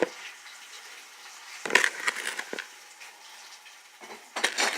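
Hot frying grease sizzling and popping with a pickle dropped in it, with two louder bursts of crackling, about two seconds in and near the end.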